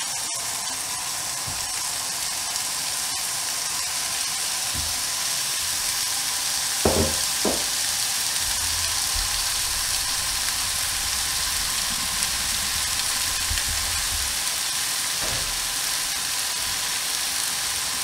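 Minced-meat kebab patties sizzling in a hot ridged grill pan with no added oil, the steady sizzle growing slightly louder as more patties go in. A couple of soft knocks come about seven seconds in.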